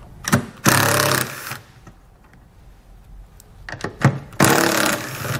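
Cordless impact driver with a 10 mm socket running in two bursts of about a second each, spinning off the two taillight mounting nuts, with a few light clicks between the bursts.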